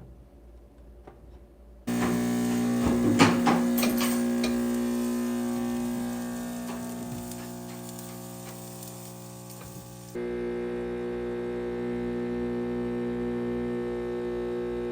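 Turin Legato espresso machine's pump humming steadily while it pulls a shot, switching on suddenly about two seconds in, with a few clicks soon after. The hum fades a little, then jumps to a different, louder steady tone about ten seconds in.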